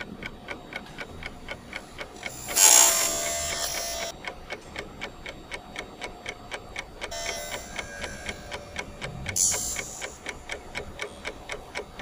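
Clock-ticking sound effect: quick, even ticks. A louder burst of hiss cuts in about two and a half seconds in, and a shorter one comes near the end.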